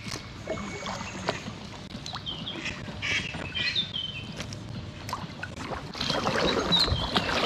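Packraft paddle strokes splashing in river water, with drips and small knocks of the paddle, and a few short bird calls. The splashing gets louder a little before the end.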